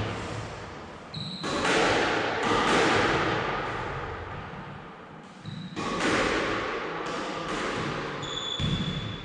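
Squash ball being struck and hitting the court walls: sharp strikes in quick clusters, each ringing out in the court's echo, with a few short high squeaks between them.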